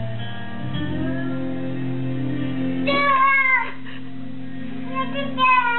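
Background music with steady sustained tones. A young child's high-pitched squeal, falling in pitch, comes about three seconds in and again near the end.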